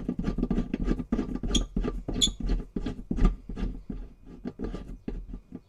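Hands threading the shifter's threaded insert onto the UTV's metal shift shaft: rapid, irregular scratchy clicks and metal rubbing, with two brief metallic pings about a second and a half and two seconds in. It gets quieter near the end.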